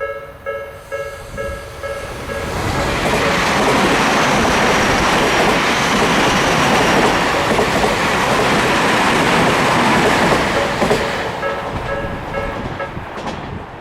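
Japanese railroad crossing warning bell dinging about twice a second, then drowned for roughly eight seconds by the loud rush and wheel clatter of an electric train passing through the crossing. The bell is heard again as the train clears, and it stops shortly before the end.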